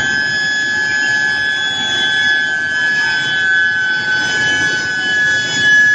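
Induction billet reheating furnace running: a steady high-pitched whine with a few fixed tones above it, over a steady rushing machine noise.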